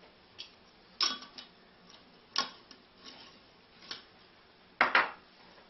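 Light, irregular clicks and taps of a glass spice jar and its lid or measuring spoon being handled while garlic powder is measured out, about seven in all, the loudest near the end.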